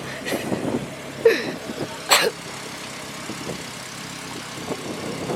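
A car engine idling steadily, with two short sharp sounds about one and two seconds in.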